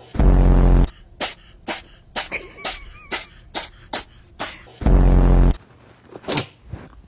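A cat sneezing over and over in short, sharp sneezes, about two a second. The run is broken twice by a much louder low-pitched sound lasting under a second, once at the start and once about five seconds in.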